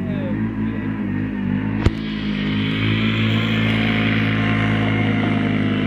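BRP Renegade 800 quad's V-twin engine revving as the ATV is driven in circles on snow, growing louder from about two seconds in. A single sharp click about two seconds in.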